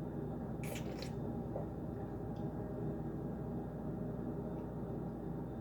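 Steady low hum, with two brief soft squishy noises about a second in.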